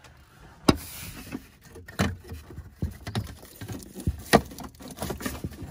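Broken pieces of a cracked plastic dash top being picked out and handled, giving irregular clicks, knocks and rattles. The sharpest knocks come just under a second in and about four seconds in.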